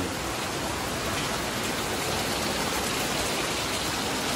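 Heavy rain falling steadily, an even hiss of rain on surfaces without a break.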